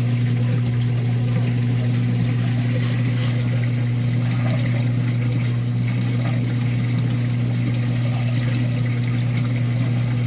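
Water trickling over a steady, loud low mechanical hum, like a running pump or motor.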